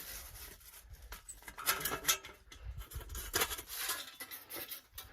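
Thin sheet-metal stovepipe and damper parts being handled and fitted, with irregular scrapes and light clicks, two longer scraping spells near the middle.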